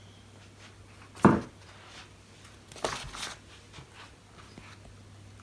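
Packaging and box contents being handled: a sharp knock about a second in, then a short spell of rustling a couple of seconds later, with a faint steady low hum underneath.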